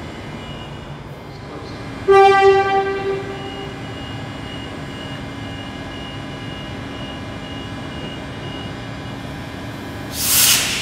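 A Queensland Rail train's horn sounds one blast about two seconds in, a single pitch with strong overtones lasting about a second and a half and fading out, over the steady hum of a train at the platform. Near the end come two short bursts of hiss.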